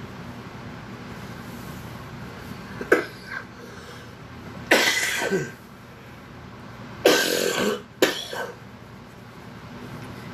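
A person coughing in a short series: a small cough about three seconds in, then two longer, harder coughs in the middle and a last short one soon after.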